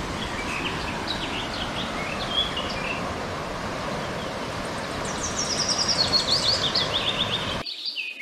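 A swollen, muddy river in flood rushing past with a steady noise, birds chirping over it, with a louder run of quick chirps from about five seconds in. Near the end the river noise cuts out suddenly.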